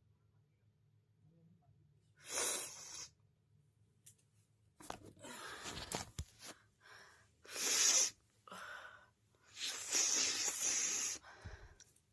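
A woman forcing air hard out through her nose in five noisy, hissing blasts spread over about nine seconds, the longest near the end.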